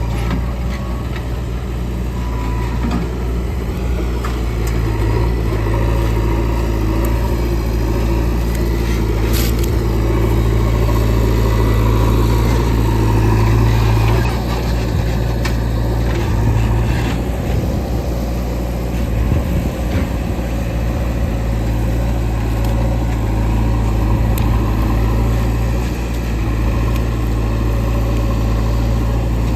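Heavy diesel engine running steadily, a little louder around the middle, with a few brief knocks.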